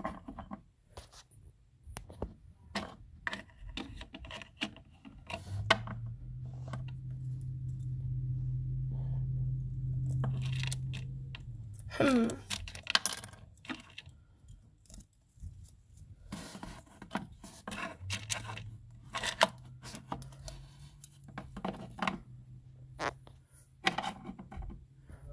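Plastic Littlest Pet Shop toy figures handled by hand, with scattered small clicks and knocks as they are moved and set down. A steady low hum comes in about six seconds in, stops around twelve seconds, and returns near eighteen seconds.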